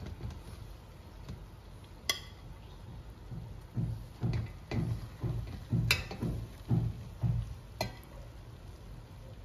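A metal serving spoon scooping biryani rice out of a hammered metal pot and onto a plate. Three sharp clinks of spoon on pot, with a run of soft, dull thumps about twice a second in the middle.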